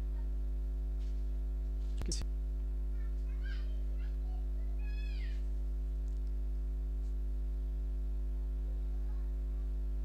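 A steady low electrical hum with a ladder of overtones runs under everything. There is one sharp click about two seconds in, and faint short high-pitched animal calls come twice, about three and a half and five seconds in.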